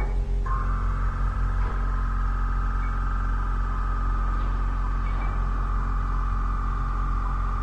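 A steady high drone from the glass installation's composed soundtrack comes in about half a second in and holds, slightly wavering, over a continuous low hum.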